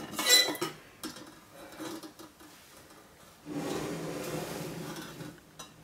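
Metal spoon clinking and ringing against a stainless steel pitcher at the very start, then softer stirring and handling sounds, with a longer stretch of steady noise in the second half.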